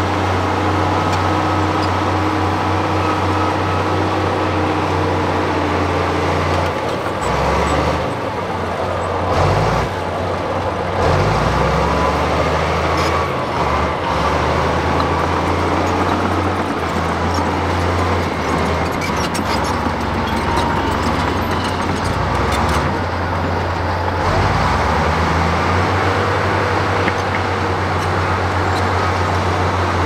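Crawler bulldozer's diesel engine running under load with a deep steady drone as it pushes broken rock. The engine note drops and shifts several times partway through, and there is some light clatter around twenty seconds in.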